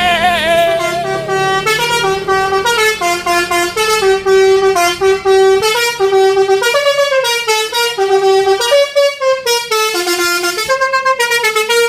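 Basuri-type multi-tone "telolet" bus horn playing a tune: a wavering, warbling tone at first, then a quick melody of short horn notes stepping up and down in pitch.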